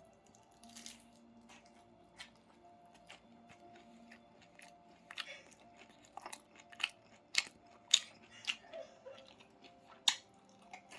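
Close-up eating sounds of a person eating pho: chewing and wet mouth smacks with scattered sharp clicks. The clicks grow louder and more frequent about halfway through.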